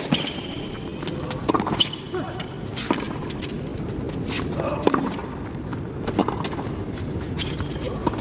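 Tennis rally: racket strings hitting the ball back and forth about every second and a half, with shoe squeaks on the hard court over a steady arena crowd hum.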